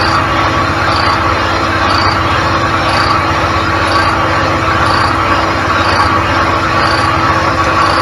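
Cylinder honing machine running a coarse roughing stone in a small golf cart engine cylinder. It gives a steady loud grinding whir with a constant hum, and a faint tick repeats a little under once a second as the hone strokes up and down the bore.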